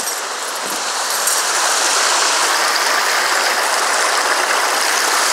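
Shallow creek water rushing and splashing over rocks close to the microphone, a steady rush that grows louder about a second in.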